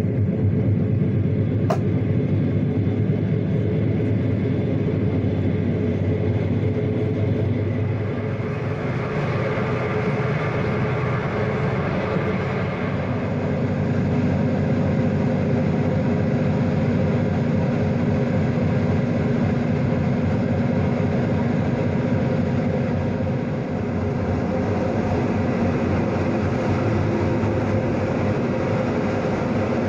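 Passenger train running at speed, a steady rumble with a few steady low tones under it, and a single sharp click about two seconds in.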